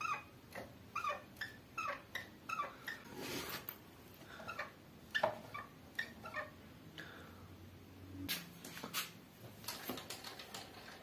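Faint, short, high-pitched animal cries repeating every half second or so, like a small animal mewing.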